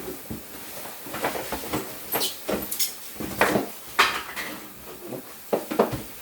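Box cutter slicing open a cardboard refrigerator carton, with irregular scraping strokes and knocks of the cardboard being handled.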